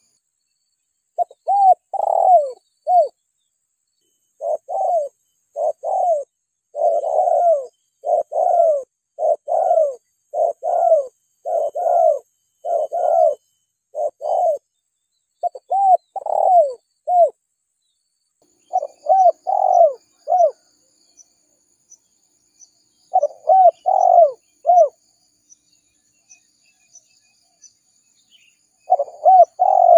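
Spotted dove (tekukur) cooing: phrases of several quick, falling coos follow one another. They pause a few times, the longest about three seconds near the end. Faint, even high ticking runs underneath in the second half.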